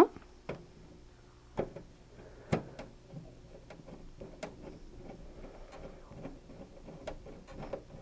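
Screw being driven by hand into a video card's metal mounting bracket in a PC case: a few sharp clicks in the first few seconds, then a string of faint, irregular ticks and scrapes as the screw turns in.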